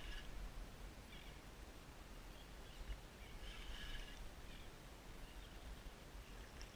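Faint outdoor ambience: a steady low wind rumble on the microphone, with a few short, faint bird calls.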